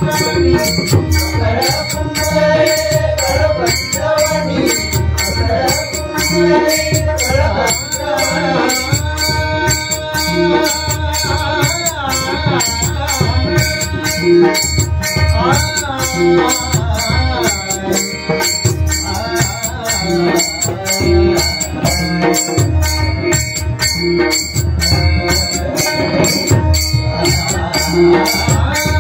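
Instrumental passage of a Marathi abhang bhajan in raga Bhupeshwari: pakhawaj and tabla play a steady fast beat with a bright high clatter of strokes, under a melodic line with gliding ornaments.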